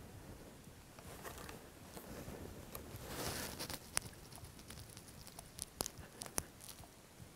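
Faint, sparse rustling with scattered small clicks and ticks. A short rustle comes about three seconds in, and a few sharper ticks follow in the second half.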